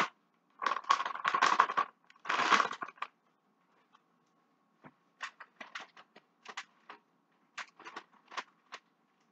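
A plastic cheese bag crinkling and rustling as it is handled and torn open, loudest for the first three seconds. From about five seconds in, a run of short light clicks and taps.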